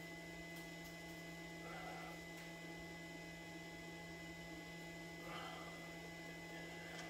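Faint steady electrical hum, with two soft brief rustles, about two seconds in and again near five seconds.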